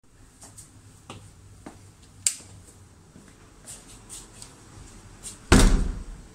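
Footsteps and handling noise of someone walking through doorways, with a sharp click about two seconds in and a loud door bang about five and a half seconds in.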